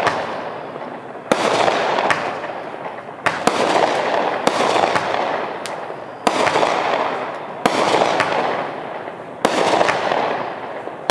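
Serenity Jr 25-shot fireworks cake firing: a string of sharp bangs about one a second, each trailing off in a fading rush of noise as the shell breaks.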